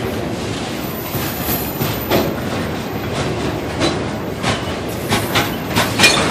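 Freight train boxcars rolling past close by: a steady rumble of steel wheels on rail, with irregular clacks as the wheels cross rail joints. A faint high squeal comes in for about a second, a little after the start.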